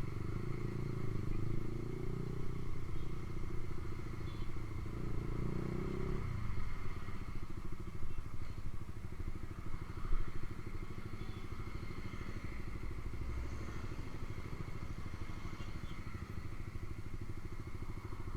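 Honda CB150R's single-cylinder engine running through a Ronin aftermarket exhaust. It runs fuller for about the first six seconds, then drops to a steady idle.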